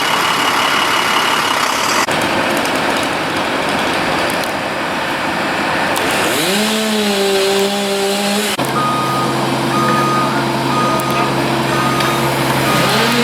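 Heavy vehicles running during storm-debris cleanup. Partway through, an engine's pitch rises and holds. In the second half a reversing alarm beeps at an even pace over a steady engine hum.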